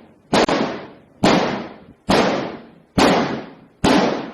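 Five hard blows struck on a transparent polycarbonate kayak hull, roughly one a second, each a sharp crack that rings briefly and dies away; it is an impact test, with the blows spreading a crack through the plastic.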